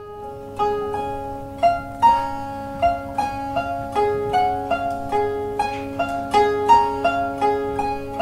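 Langeleik, the Norwegian drone zither, played with a plectrum: rhythmic strummed strokes about twice a second, a melody fingered on the fretted string over drone strings that ring steadily underneath.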